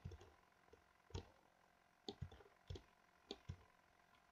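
Faint computer mouse clicks, scattered single clicks and quick pairs about once a second.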